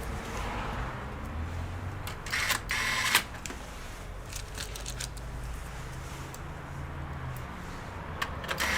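Small clicks and handling noises of parts inside an opened desktop computer, with a scraping slide lasting about a second, as a component is fitted into place.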